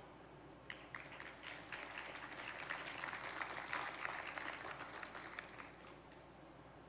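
Audience applauding, faint and scattered, starting about a second in, swelling in the middle and dying away near the end.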